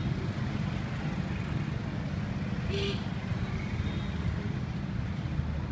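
Steady low rumble of street traffic, with a brief hiss just under three seconds in.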